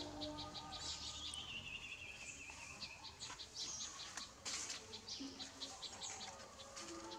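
Outdoor ambience of insects chirping in quick, even pulses, about six a second, with birdsong. A long, high, falling whistle-like call runs from about one to three seconds in.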